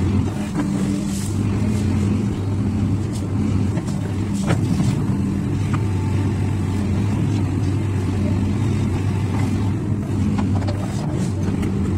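XCMG hydraulic excavator's diesel engine running steadily under working load as the machine swings its boom and bucket, with a few sharp knocks around the middle.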